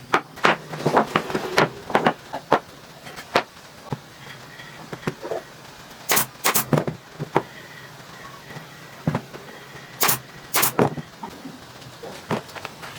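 Irregular knocks and clicks of wood being handled, with hard taps and clacks spaced unevenly and a few sharper ones in the second half.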